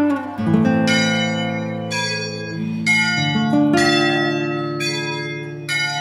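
Slow bell-like tones, a new one struck about every second and each left ringing on under the next.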